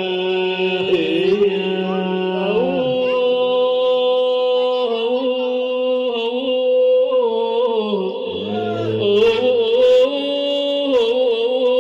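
Melodic music between sung verses of an Iraqi madih, a praise poem for the Prophet. It is a line of long held notes that bend and glide in pitch over a steady high drone, with a few faint taps near the end.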